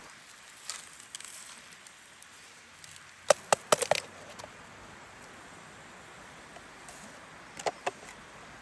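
A quick cluster of about five sharp knocks or clicks a little past three seconds in, then three more near the end, over a faint steady background.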